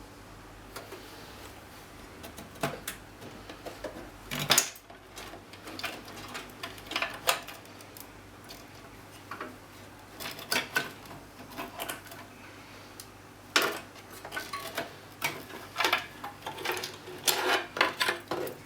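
Irregular clicks, taps and small knocks of an old motherboard being worked loose and lifted out of a desktop PC case. The loudest knock comes about four and a half seconds in, and a quick cluster of clicks comes near the end.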